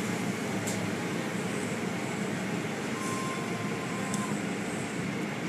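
Automatic car wash heard from inside the car: a steady noise of water spray and spinning cloth brushes against the car, over the hum of the wash machinery. A faint steady whine sounds for about a second a little after the midpoint.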